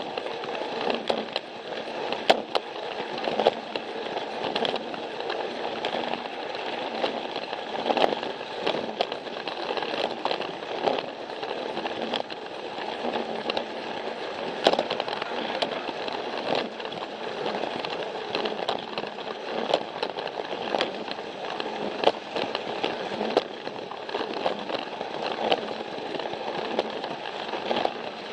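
Battery-powered Plarail toy train running on plastic track: a steady whir from its small motor and gears, with irregular sharp clicks and rattles as it rolls over the track.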